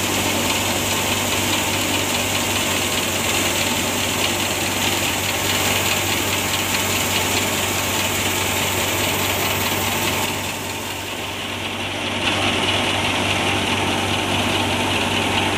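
Wheat thresher running steadily under power: a continuous mechanical drone with a rushing hiss of straw and chaff being blown out. It dips briefly quieter about ten seconds in, then carries on.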